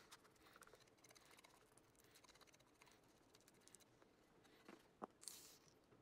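Faint, fine sticky ticking of a small brush spreading wood glue over a thin wooden insert strip, then two small clicks and a short hiss near the end as the glue bottle is squeezed again.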